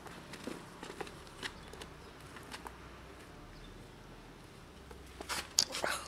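A cat crunching dry cat food, with a few scattered crunches over the first three seconds. Near the end comes a louder, quick run of clicks and rattles from the plastic food box being handled.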